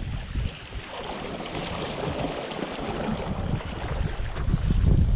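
Wind buffeting the microphone over water lapping against shore rocks, the low wind rumble growing stronger near the end.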